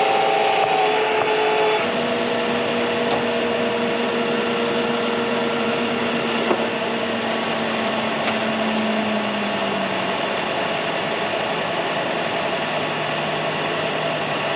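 Combine harvester running, heard from inside the cab, while its unloading auger unloads corn into a truck: a steady machine drone with a hum whose pitch shifts about two seconds in, and a lower tone that drops a little near the ten-second mark.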